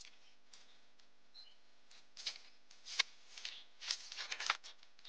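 Scuffs and rustles of people moving about on a dry dirt path: quiet at first, then short scraping noises from about two seconds in, with a sharp click about three seconds in and a quick run of scuffs a second later.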